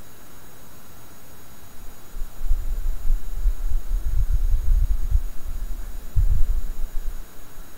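A steady hiss, with a low, uneven rumble that comes in about two seconds in and fades near the end.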